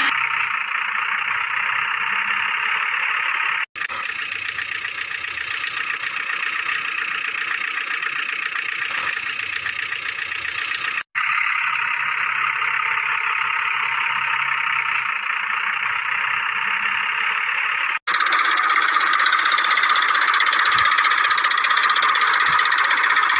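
Small motor running with a steady, noisy, high-pitched mechanical sound, broken three times by brief dropouts.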